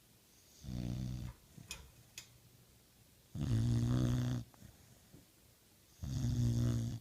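Pit bull snoring in its sleep: three loud, low-pitched snores about every two and a half seconds, with quiet breathing between them.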